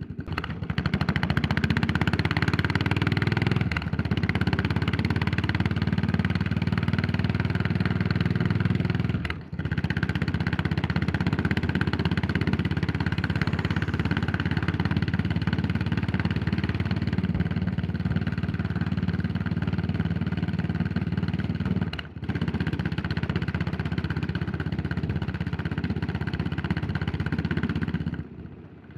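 Yamaha SR400's air-cooled single-cylinder four-stroke engine running as the motorcycle is ridden. The sound dips briefly twice, at about 9 and 22 seconds in, and falls away near the end.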